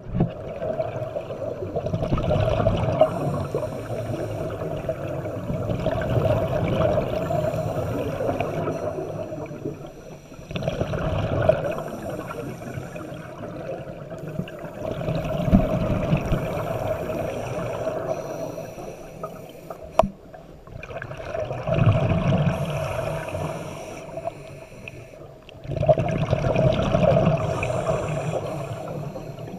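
Scuba diver's regulator breathing underwater, heard through the camera's housing: rushing exhaled bubbles and breath hiss that swell and ebb in slow cycles of several seconds. A single sharp click about twenty seconds in.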